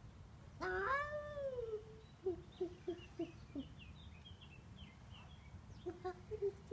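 Devon Rex cat giving one long meow that rises and then falls in pitch, followed by a run of short, quick chirping calls, then more chirps near the end.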